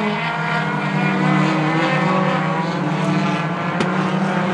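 Four-cylinder Lightning 4 short-track race cars circulating the oval, their engines running in a steady drone of several overlapping engine notes. A faint click comes near the end.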